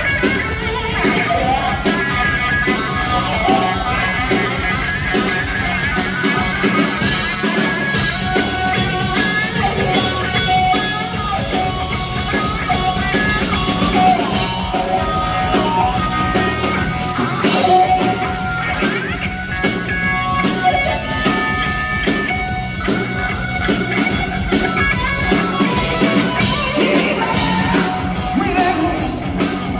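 Live rock band playing: electric guitar over a drum kit, with a man singing into a handheld microphone.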